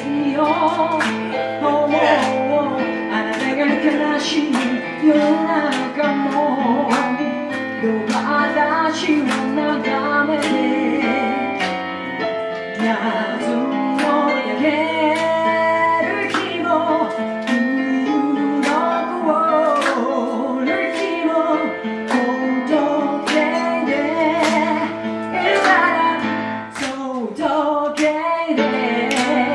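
Live female vocalist singing into a microphone over keyboard accompaniment, with a steady percussive beat.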